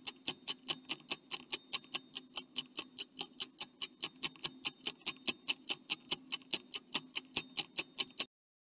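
Clock-ticking countdown sound effect: sharp, even ticks at about four a second, marking the time to answer a quiz question. It stops suddenly shortly before the end.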